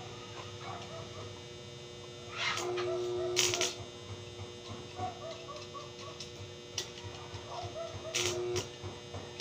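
Steady electrical hum of an arc-welding machine's transformer, swelling briefly during two short louder noisy spells, one about two and a half seconds in and one near the end.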